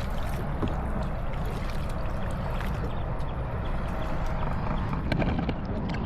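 Kayak paddling: water splashing and dripping from the paddle strokes as small scattered clicks, over a steady low rumble.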